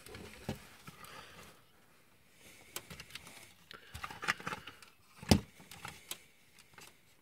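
Hard plastic parts of a transforming robot toy clicking and knocking as it is handled: a few scattered clicks, with the loudest knock about five seconds in.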